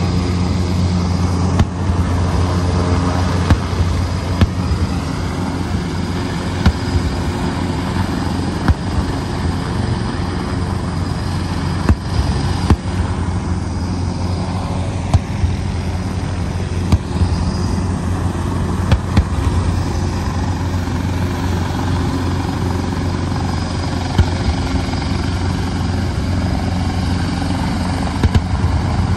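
Several large military helicopters hovering and flying low: a steady, loud low rotor drone with turbine whine above it.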